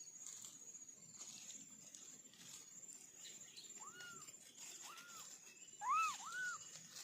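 Kittens mewing: four short, high mews in the second half, each rising and falling in pitch, the loudest a pair close together near the end.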